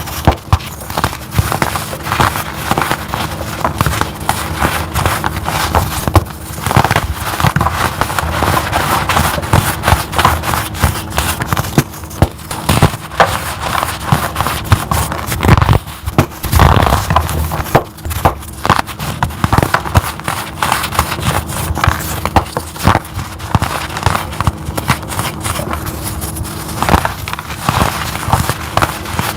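Crunchy powder blocks being crushed by hand, a dense run of crisp crackles and crunches with no pause.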